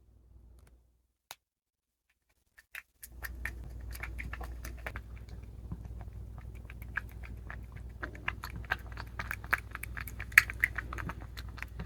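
Cat eating its food, chewing with many quick clicking crunches that start about three seconds in.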